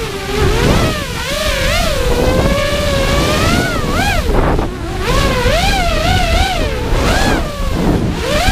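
FPV freestyle quadcopter's brushless motors and propellers whining. The pitch swoops up and down with the throttle, with several sharp drops, over steady wind rush on the onboard camera's microphone.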